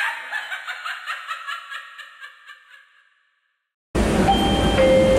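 A recorded laugh sound effect that pulses about five times a second and fades away over some three seconds. After a second of silence, a steady rumble with several held whining tones starts inside the Terminal Link people-mover train, the cable-hauled airport shuttle, near the end.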